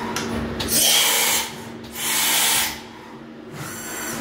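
AXA VARIO 2 traveling-column machining center running with a steady hum, broken by two loud hissing blasts of air, each under a second, and a fainter hiss near the end.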